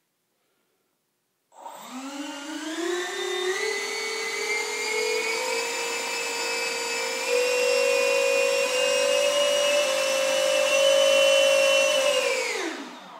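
Twin 64 mm electric ducted fans, driven by 4000 kV Wicked outrunner motors, spooling up after about a second and a half of silence. The whine climbs quickly, then creeps higher in small steps as the throttle is pushed up. Near the end the fans wind down as the throttle is cut.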